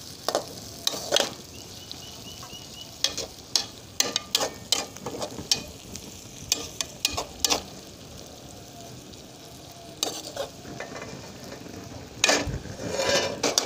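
Onion and tomato masala sizzling in oil in a metal karahi, a little water just added, while a slotted metal spoon is stirred through it, scraping and clicking against the pan. The stirring strokes come thickest near the end.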